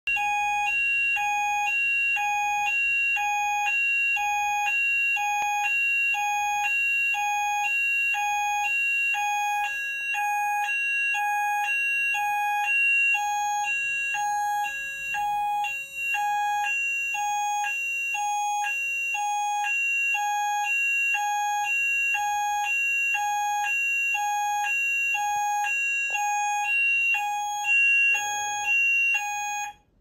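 Office building fire alarm sounding: a steady high tone under a lower tone that alternates between two pitches about once a second. It cuts off abruptly near the end.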